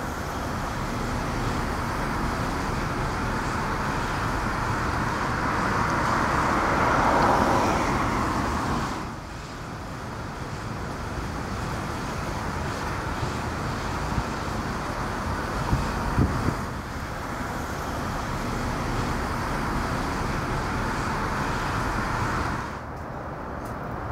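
Steady outdoor background noise like distant road traffic, with no clear single source. It drops abruptly in level about nine seconds in and again near the end, with a few faint knocks in between.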